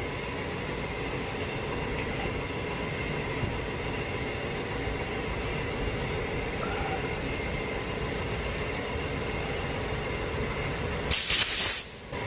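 Steady mechanical shop hum with a few held tones. About eleven seconds in, a loud hiss of compressed air lasting under a second, from an air blow gun blowing grime out of a part being cleaned.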